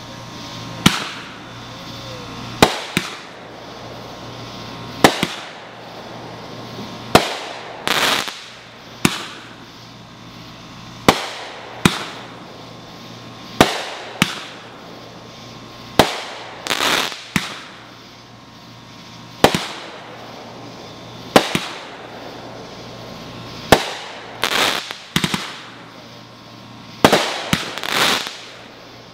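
Aerial firework shells bursting one after another, a sharp bang every two seconds or so. Some bangs are followed by a quick cluster of smaller pops and crackle.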